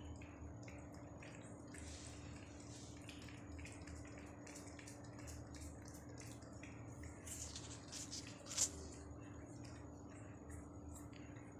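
A calico cat licking creamy paste from a squeeze-tube treat, making quick, faint, wet lapping clicks a few times a second, with one sharper click near the end.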